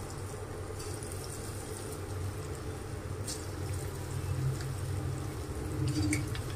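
Cabbage pakoras deep-frying in hot oil in a kadhai: a steady sizzle with a few sharp crackles as more dollops of batter go into the oil.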